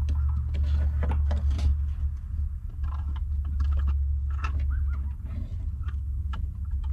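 2001 Chevy Impala's plastic fuel pump and sending unit assembly being wiggled and pulled up out of the fuel tank opening: scattered small clicks, knocks and rattles of plastic and metal. A steady low rumble runs underneath.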